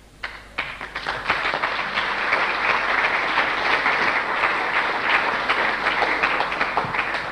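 Audience applauding: many hands clapping, building up within the first second and then holding steady.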